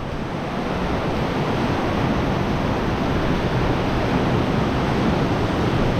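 Ocean surf rushing in over rocks: a steady, continuous wash of waves that swells slightly.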